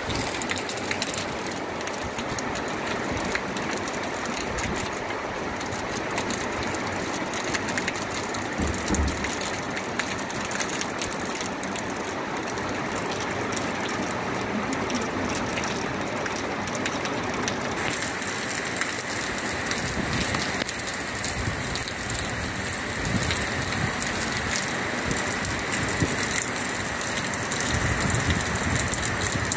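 Heavy monsoon rain falling steadily on leaves, ground and water.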